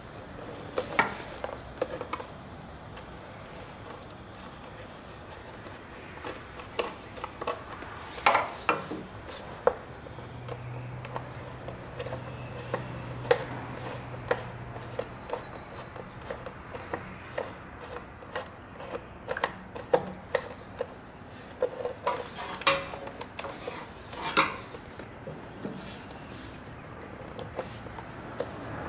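Irregular clicks and knocks of a screwdriver and hands working on the screws and cover over a GY6 go-kart engine, metal tool tapping on hard plastic and the frame. A low steady hum comes in about ten seconds in and lasts about five seconds.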